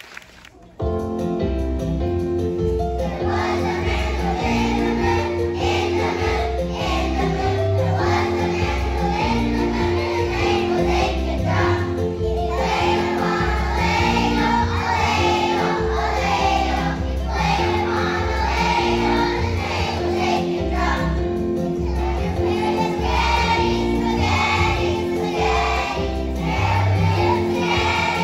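A first-grade children's choir singing a song with instrumental accompaniment and a steady bass. The music starts suddenly about a second in.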